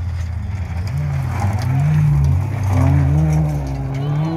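Rally car engine revving hard, its pitch climbing and dropping several times as it accelerates and shifts, with tyres on loose gravel.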